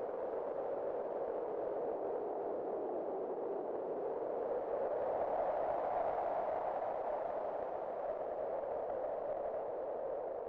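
Wind howling in a steady rush with a whistling edge. It swells and rises a little in pitch about halfway through, then eases back.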